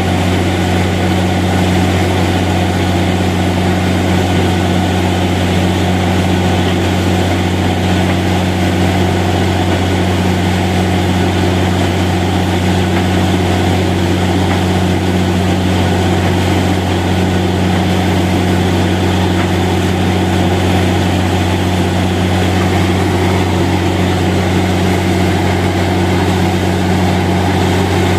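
Borewell drilling rig's engine running steadily at a loud, unchanging low drone.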